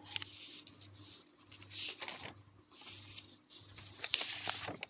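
Paper rustling as a notebook page is handled and turned over, in several short swishes with a few light clicks, the busiest stretch near the end.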